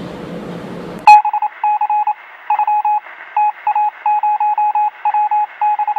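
Room tone with a low hum, cut off about a second in by loud electronic beeping: one steady pitch switching on and off in an irregular pattern of short and long beeps.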